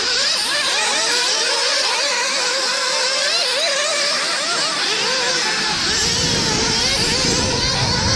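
Several nitro-powered RC cars racing together, their small glow-fuel engines whining at many overlapping pitches that rise and fall quickly as they accelerate and brake around the circuit. A low rumble joins about six seconds in.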